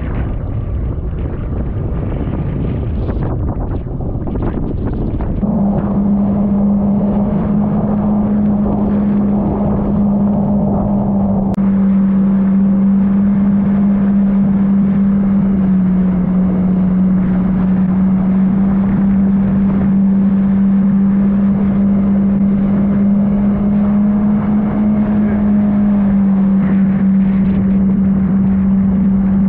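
Jet ski engine running under way, rising about five seconds in to a steady low drone that holds and drops slightly in pitch twice, over the rush of wind and spray.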